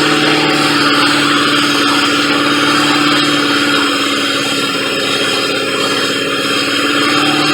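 Ford Crown Victoria P71's 4.6-litre V8 running steadily with its air intake off and the throttle body open, with a broad hiss over the engine hum; the hum drops slightly a little past the middle and comes back near the end.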